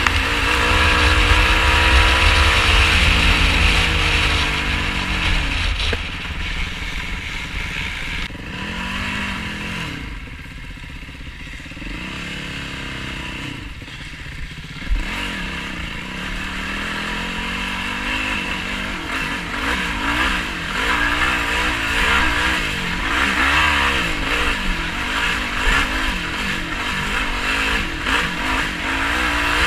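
Sport quad's single-cylinder four-stroke engine (2018 Yamaha YFZ450R) revving up and down as it is ridden off-road, easing off to a lower level in the middle before picking up again, with wind rumble on the microphone and a single knock about halfway through.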